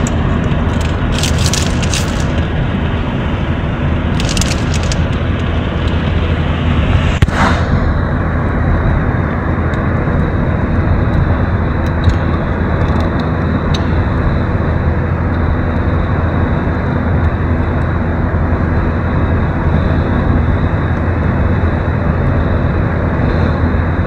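Cabin noise of an Opel car driving along a road: a steady, loud engine and tyre rumble with a strong low hum. A few faint clicks come in the first few seconds, and a brief sharp knock comes about seven seconds in.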